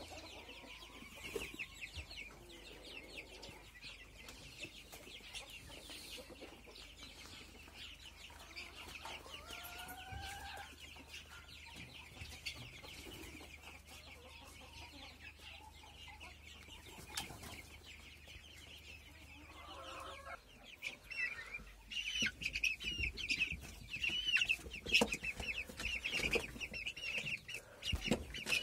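A flock of young chicks peeping nonstop, many short high peeps overlapping. It gets louder about two-thirds of the way through.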